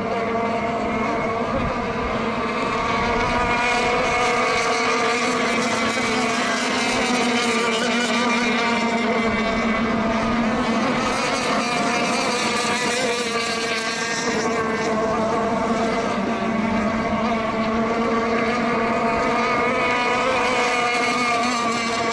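Several radio-controlled racing boats running at speed on the course, a steady, continuous buzz whose pitch wavers slightly as the boats go round.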